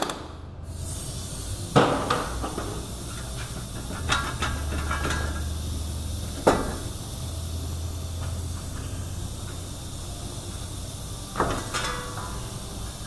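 Hammer blows on the end of a Hummer H3's front axle shaft, knocking it loose from the hub: four separate sharp metal strikes several seconds apart, each ringing briefly.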